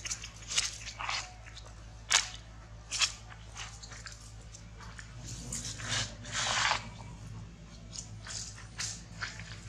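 Dry fallen leaves crunching and rustling in short, scattered bursts as monkeys scuffle on leaf-strewn ground, with a longer rustle about six seconds in.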